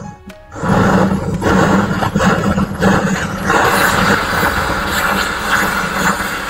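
Jeweller's torch flame running with a steady rushing hiss as it melts silver in a crucible for casting. It comes on about half a second in.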